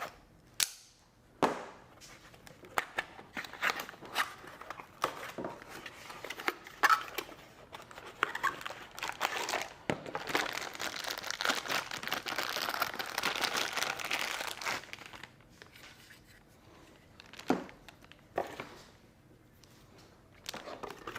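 Packaging being handled during an unboxing: tape peeled off and plastic or paper crinkling, with scattered sharp snaps and taps. The crinkling is densest and loudest from about ten to fifteen seconds in.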